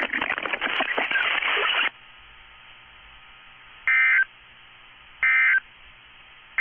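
NOAA Weather Radio's voice announcement ends about two seconds in, leaving faint receiver hiss. Then come two short, loud bursts of EAS/SAME digital data tones, about a second and a half apart, with a third just starting: the end-of-message code that closes the weekly test.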